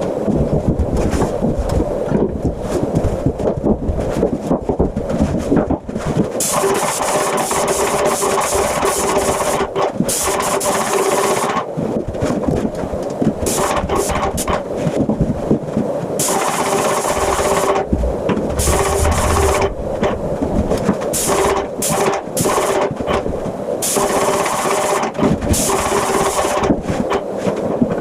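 Airless paint sprayer's pump running with a rapid steady clatter, with stretches of a few seconds each of loud spray hiss as the gun is triggered.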